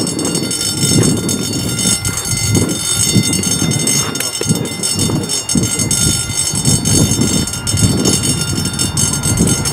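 Eurofighter Typhoon's twin EJ200 turbofans running on the runway, lined up for takeoff: a loud, uneven low rumble with faint steady high-pitched whine tones above it.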